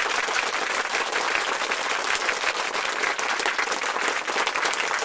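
Crowd applause sound effect: many hands clapping densely and steadily.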